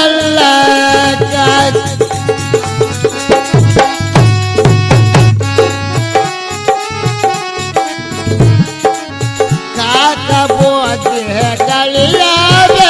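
Instrumental interlude of a Kannada tatvapada devotional folk song: keyboard and harmonium melody over a dholak drum beat and tala hand cymbals.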